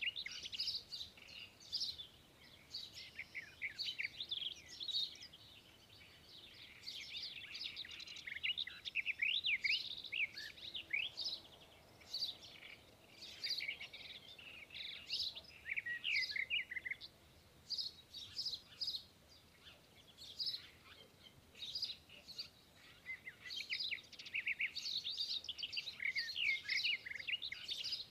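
Birds chirping: rapid, overlapping short chirps in bursts, with brief lulls between them.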